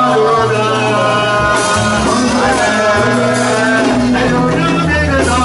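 Live church worship music played through a PA: a man sings into a microphone over a band with keyboard and drums, with low notes changing under the melody.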